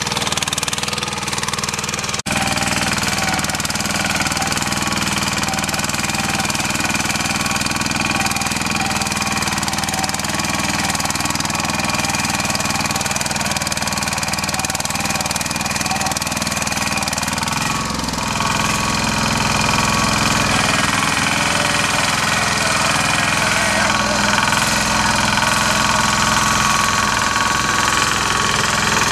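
Yağmur YET-510 walk-behind tiller's engine running steadily while its rotary tines till the soil. It grows a little louder about two-thirds of the way through.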